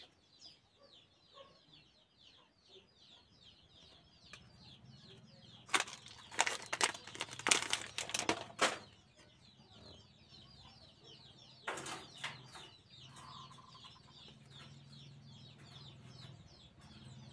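Glossy trading cards being handled and set down on a table: two bursts of sharp clicks and rustles, about six to nine seconds in and again around twelve seconds. Birds chirp rapidly and continuously in the background, with a faint low hum underneath.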